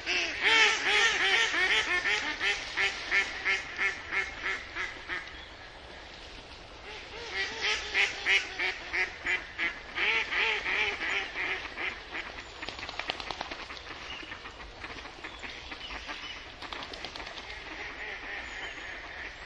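Duck quacking in quick runs of short calls, about three or four a second. Two loud runs come in the first five seconds and again from about seven to twelve seconds, with fainter quacks after that.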